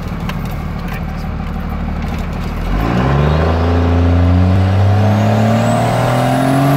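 24-valve Cummins 5.9 L inline-six turbo diesel pulling the pickup hard under acceleration: a steady low engine note, then from about three seconds in the engine pitch climbs steadily, with a thin high whistle rising alongside it near the end.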